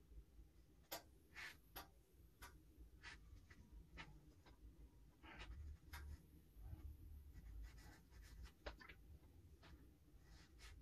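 Faint scratches and dabs of a thin paintbrush on watercolour paper, in short irregular strokes.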